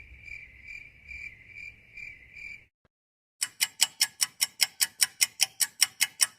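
Cricket chirping sound effect: a steady high trill pulsing about twice a second, stopping about two and a half seconds in. After a short gap comes a fast run of sharp clicks, about six or seven a second.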